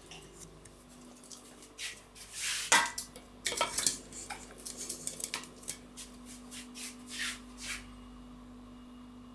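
Stainless-steel dog bowl clanking as it is handled and set into its metal stand: one sharp clank about three seconds in, then a string of lighter clinks and scrapes that stop near the end.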